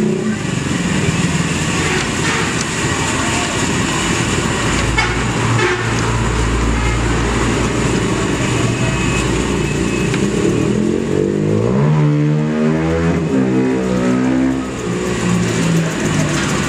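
Steady motor traffic noise, with one vehicle engine rising in pitch about eleven seconds in and revving up and down for a few seconds.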